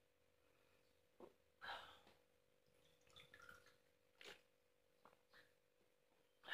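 Faint sounds of a man drinking water from a plastic bottle: a few small clicks and a short breath, over a faint steady hum.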